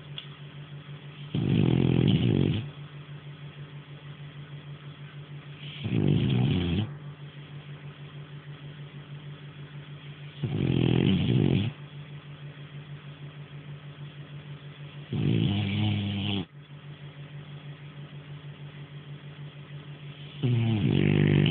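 French Bulldog snoring in its sleep: five loud snores, each about a second long, coming about every four and a half seconds. A low steady hum runs underneath.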